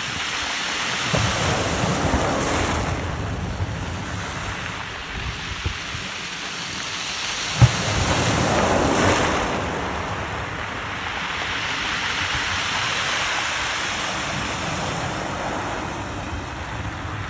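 Sea waves breaking on the shore, with two surges of crashing surf followed by a longer wash, and wind buffeting the microphone. A single sharp thump comes just before the second surge.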